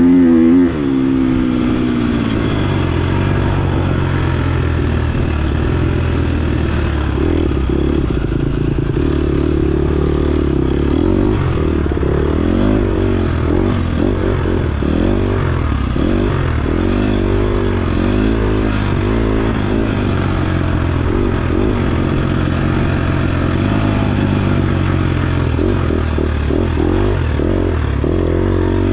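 KTM 250 XC-F single-cylinder four-stroke dirt bike engine being ridden hard. The revs climb and then drop sharply about a second in, and the engine then runs at mostly steady throttle with small rises and falls, along with knocks and rattles.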